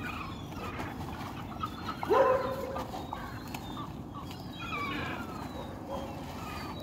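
A few short animal cries: one loud rising cry about two seconds in, and a couple of falling calls around five seconds.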